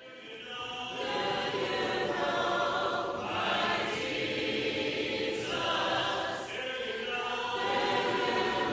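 Choir singing a cappella in held, sustained chords, fading in over the first second.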